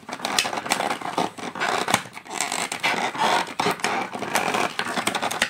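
Fingers and fingernails scratching and prying at a cardboard advent calendar door to open it: a quick run of scrapes and small clicks.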